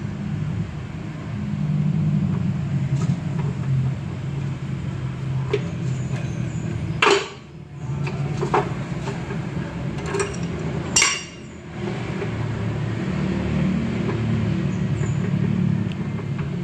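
Metal tools clinking and knocking against a removed steering rack and tie rod, with two sharper knocks about seven and eleven seconds in, over a steady low engine drone.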